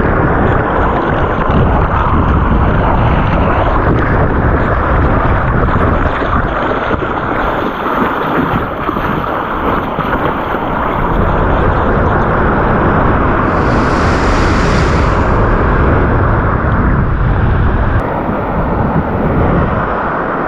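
Waves breaking and surf washing through the shallows around a fishing kayak landing through the shore break, with heavy wind rumble on the microphone. A brighter hiss of washing foam swells about two-thirds of the way through.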